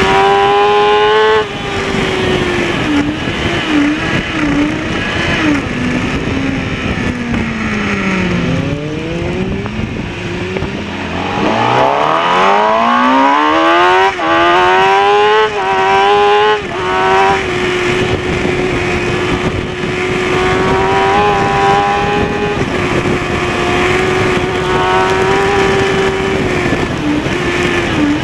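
Kawasaki ZX-6R inline-four engine heard from on board at racing speed. It holds high revs, drops off about a second and a half in and winds down through the next several seconds, then climbs hard from about 11 seconds with quick upshifts near 14 and 16.5 seconds before holding high revs again, with a brief dip near the end. Wind rush runs under it throughout.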